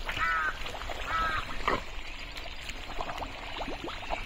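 Two short nasal animal calls, like quacks, about a second apart near the start, over the squelch and slosh of feet wading through thick pond mud.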